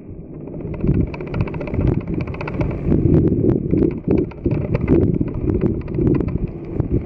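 Gusty wind buffeting the microphone in a loud, uneven low rumble, with many scattered sharp ticks of rain striking close to the microphone.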